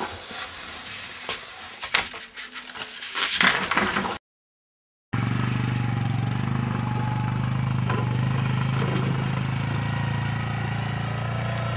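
Wooden planks knocking and scraping against a window frame as they are handled, loudest about three seconds in. After a short break, an ATV engine runs steadily as the quad bike pulls a trailer.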